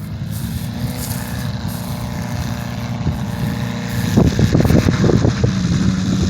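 Engine of a Zenith light aircraft running steadily, then louder and rougher, with an uneven chop, about four seconds in. The engine has a miss that the owner suspects comes from weak valve springs.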